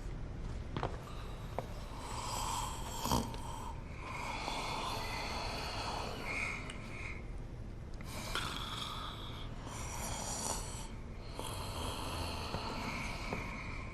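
A man snoring heavily, each rasping snore lasting a second or two and recurring every two to three seconds.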